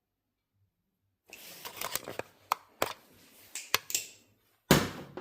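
Balisong butterfly knives being handled: a run of rustling and sharp clacks from the metal handles and blade, with a louder knock near the end.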